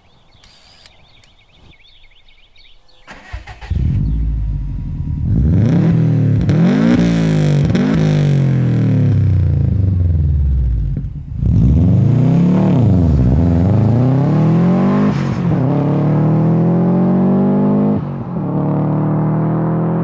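Turbocharged flat-four of a 2002–07 Subaru WRX/STI through a titanium cat-back exhaust, coming in about three and a half seconds in and revving up and down several times. In the last five seconds it holds a steady, slowly rising pull as the engine accelerates.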